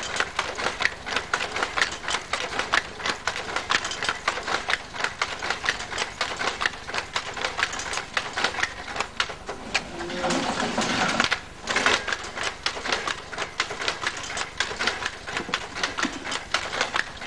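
Weaving loom running, a rapid and continuous mechanical clatter from the shuttle being thrown and the reed beating up the weft as tweed is woven.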